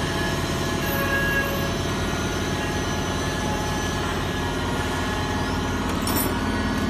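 Metalworking machinery running steadily, a dense mechanical noise with several steady tones, and a short sharp knock about six seconds in.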